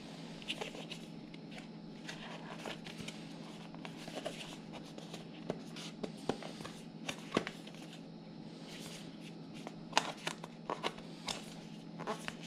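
Hands fiddling with a small cardboard box while struggling to open it: scattered light taps, scrapes and rubs of cardboard, over a faint steady hum.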